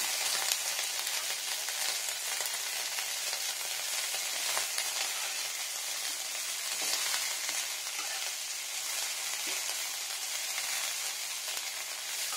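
Sliced onion and onion greens sizzling steadily in hot mustard oil in a frying pan, stirred with a spatula that now and then ticks against the pan.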